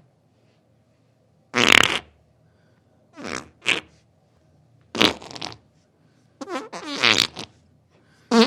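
A series of farts, about five short bursts with silent gaps between them; one, a little past the middle, runs longer and sputters with a wavering pitch.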